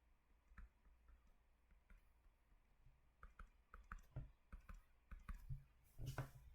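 Faint, scattered clicks and taps that come more often in the second half, with a slightly longer, louder rustle near the end, over near-silent room tone.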